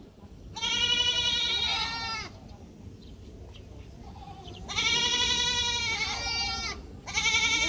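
Alpaca humming: four long, wavering, nasal pitched calls, each about half a second to one and a half seconds long, with short pauses between them; the last is still going at the end.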